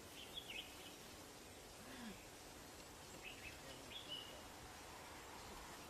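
Faint birds chirping over a low steady background hiss, with a few short chirps near the start and again about three to four seconds in.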